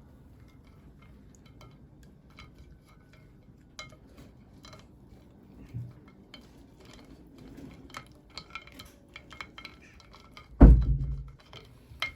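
Small hard plastic pieces clicking and clinking as miniature toys and packaging are handled, with one heavy thud against the table near the end.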